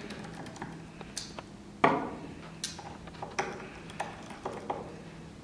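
Light clicks and taps of a small screwdriver bit working the tiny screws out of an iPhone 4S's charge-port cover, about half a dozen separate ticks, the loudest a little under two seconds in.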